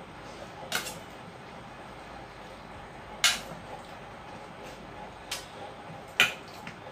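Four sharp clinks of a metal spoon against metal plates and serving bowls, the loudest about three seconds in, over a steady low hiss.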